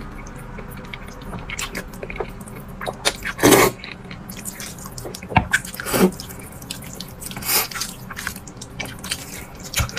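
A person slurping and chewing mouthfuls of sesame-sauce vermicelli noodles, with a few louder slurps in between the quieter wet chewing.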